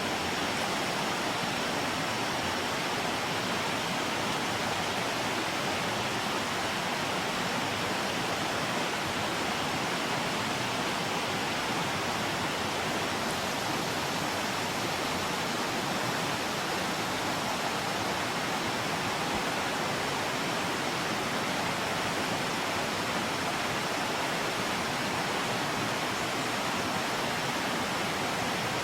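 Steady rush of fast-flowing river water, an even hiss with no breaks, with a faint thin high tone held steadily above it.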